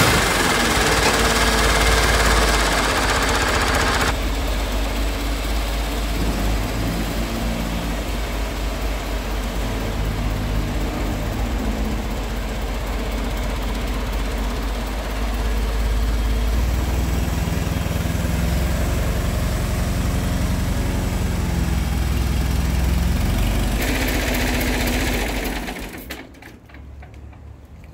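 Diesel engine of a mobile crane running steadily while it lifts a heavy machine column, its revs shifting up and down. It drops away to a much quieter background about two seconds before the end.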